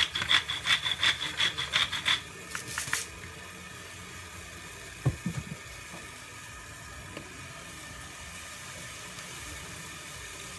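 Hand salt grinder twisted over a pot, a quick rattling grind of many short strokes for about two seconds and a brief burst again around three seconds in. After that only a faint steady hiss, with a single knock about five seconds in.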